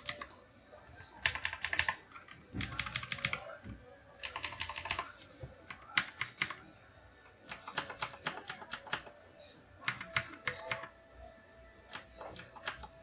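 Short runs of fast typing on clicky mechanical keyboards: the Havit's blue switches, imitations of Cherry MX Blue, and an EagleTec keyboard, typed in turn. There are about eight quick clattering runs of key clicks, with short pauses between them.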